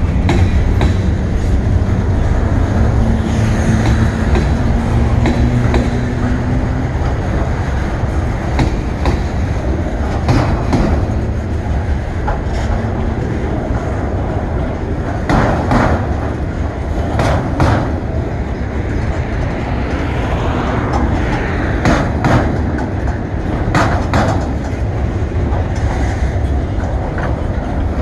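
Freight train cars rolling past close by: a steady rumble of steel wheels on the rails, with a sharp clack every few seconds.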